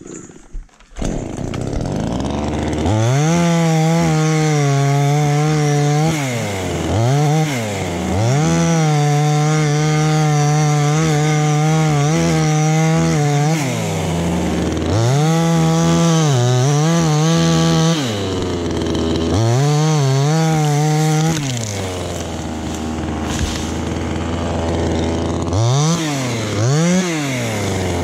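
Petrol chainsaw cutting through a tree limb: the two-stroke engine comes in about a second in, then is held at full throttle in long stretches, dropping back and revving up again several times, and cuts off near the end.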